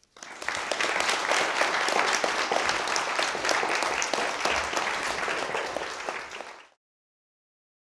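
Audience applauding: many hands clapping in a dense patter, tapering off and cutting off near the end.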